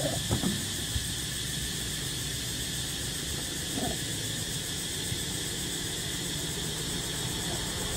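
Steady high hiss with a few soft knocks in the first half second, as macaques shift about on the car's metal roof and hood. A brief low sound comes about four seconds in.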